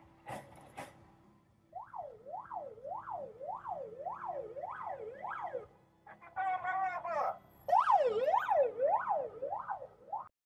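Electronic siren sweeping quickly up and down, about two sweeps a second. A little past the middle it switches for about a second to a steady pitched tone, then goes back to the sweeps, louder.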